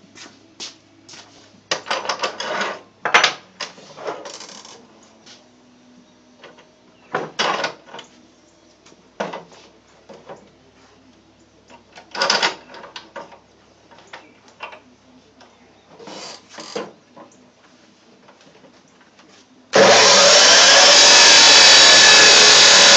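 Scattered knocks and clatter of metal parts and tools being handled on a workbench, then near the end a power tool starts suddenly and runs loud and steady.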